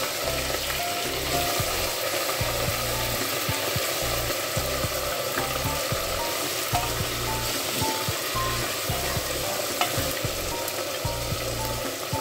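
Raw mutton pieces sizzling and frying in hot mustard oil with whole spices in a pressure-cooker pot, being seared until the meat changes colour. A few sharp knocks of meat and a wooden spoon against the pot sound through the steady sizzle.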